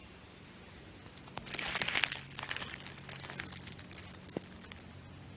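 Dry fallen leaves crackling and rustling in a run of short crunchy crackles. They start about a second in, are loudest around two seconds, and thin out before the end.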